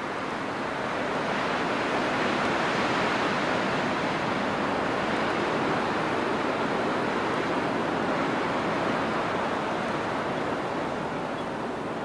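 A steady rushing noise like surf, with no tune in it, that swells over the first two seconds and eases off slightly toward the end.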